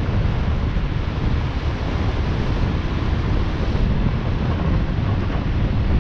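Steady wind noise buffeting the microphone of a camera on a moving motorcycle, a dense low rush of air with no break.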